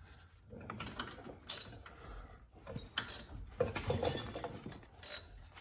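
Light, irregular metallic clinks and clicks of hand tools and steel bolts being handled while parking brake caliper bolts are fitted by hand.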